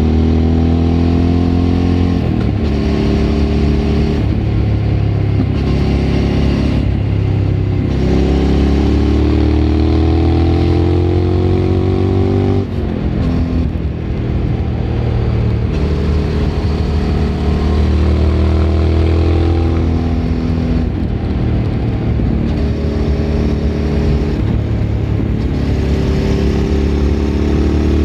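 Suzuki V-Strom 1000's V-twin engine through a Remus aftermarket exhaust, heard onboard while riding. It pulls up through the revs several times, with short breaks between pulls as it shifts gear, eases off briefly around the middle, then accelerates again.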